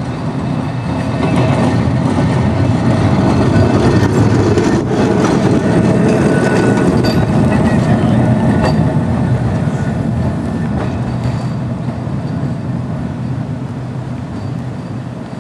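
Vintage Blackpool single-deck electric tram running past on its rails: a low rumble of wheels and running gear that swells as it draws level, with a few sharp clicks, then fades as it moves away.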